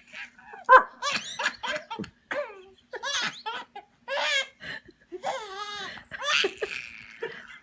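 A baby laughing in a run of short, high-pitched bursts and giggles.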